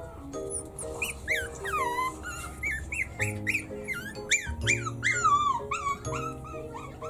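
A Maltese puppy gives a rapid string of high yips and whimpers, each one falling in pitch, starting about a second in. Background music plays underneath.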